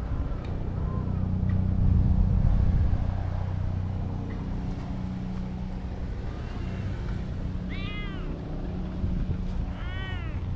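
A cat meowing twice near the end, two short calls about two seconds apart, each rising then falling in pitch. A steady low rumble runs underneath.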